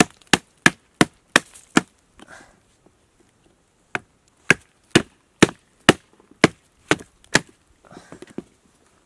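A wooden baton striking the spine of a small fixed-blade knife, the Heidi Production Knife No.1, to drive it into a hard, dry log (batoning). About six sharp knocks come in a quick run, about three a second. After a pause of about two seconds with faint rustling, about eight more knocks follow, a little slower.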